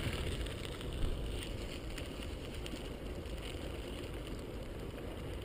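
Riding noise on a handlebar-mounted GoPro while cycling: a steady low rumble of wind on the microphone and tyres rolling on the path, with a few faint ticks.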